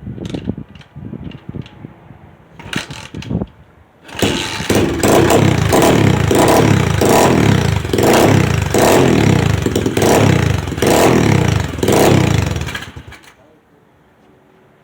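A few knocks and clicks, then a SSR pit bike's engine catches about four seconds in and runs loudly, surging and falling away about once a second, before stopping suddenly near the end. This is its first start after a carburetor rebuild, without the starter fluid it used to need.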